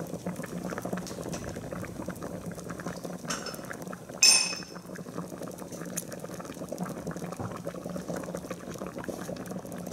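Creamy chicken-and-milk broth boiling in a large pot, a steady bubbling; a single sharp, ringing clink about four seconds in.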